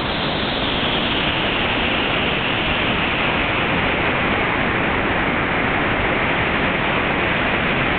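Waterfall: loud, steady rush of falling water, unbroken throughout.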